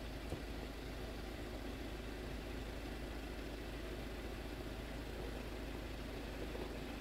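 A vehicle engine running steadily at low revs, with a deep rumble underneath.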